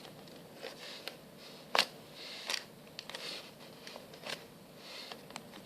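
Hands handling and squeezing a foam squishy toy: soft rustling with scattered light clicks, the sharpest about two seconds in.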